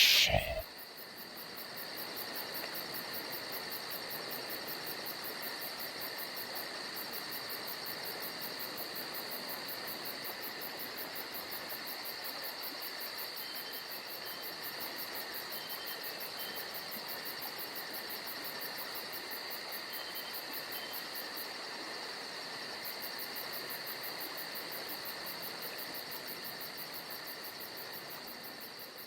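Steady chorus of crickets chirping in a fast, even trill, easing off slightly near the end.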